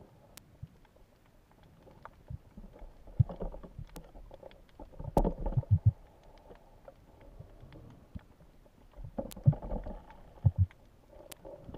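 Underwater sound picked up by a diver's camera: scattered sharp clicks throughout, and four bursts of low, rushing water noise as the diver moves along the seabed.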